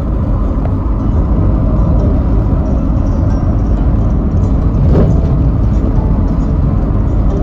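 Steady low rumble of a motor vehicle driving, with a brief louder noise about five seconds in.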